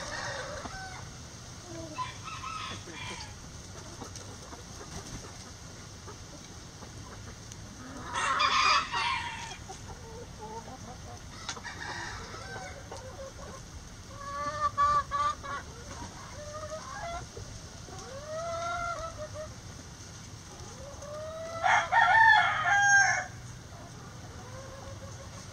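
Backyard chickens clucking and calling at intervals, with a loud crow about eight seconds in and another, the loudest call, near the end.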